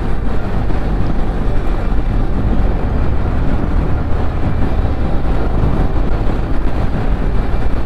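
Wind rush and a motorcycle engine, heard steadily from a riding motorcycle, with heavy low rumble buffeting the microphone.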